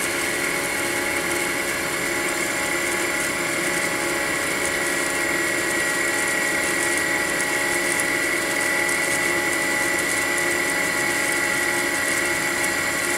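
Eldorado M75-1061 gun drilling machine's spindle running at about 3,000 rpm while the gun drill feeds through the body of the hole. It makes a steady high whine over a mechanical hum, with no change in speed.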